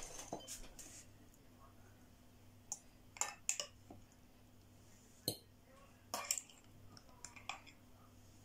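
Metal forks clinking and scraping against a glass jar as pieces of fish are pried out. There are a handful of scattered light clinks, the sharpest about five seconds in.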